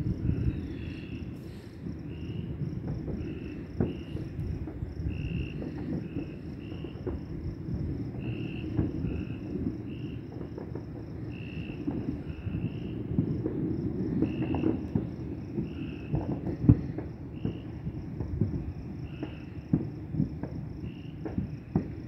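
Crickets chirping in a steady, fast high pulse, with shorter, lower chirps from other insects coming irregularly every second or so. Under them runs a steady low rumble with occasional soft thumps.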